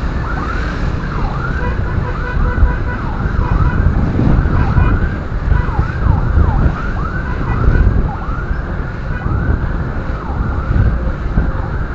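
Ambulance siren sounding in a fast yelp, its pitch sweeping up and down a few times a second, over a heavy low rumble.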